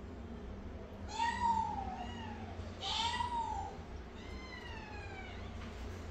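Newborn kittens mewing: four high-pitched cries, each rising and then falling. The last is the longest and trails downward.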